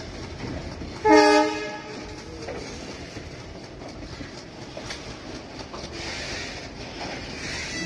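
Loaded covered freight wagons rolling past with a steady rumble and scattered wheel clicks over rail joints. About a second in, one short, loud horn blast.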